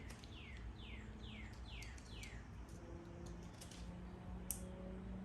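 A bird calling in the background: five short chirps, each falling quickly in pitch, about two a second, in the first half. One sharp click about four and a half seconds in.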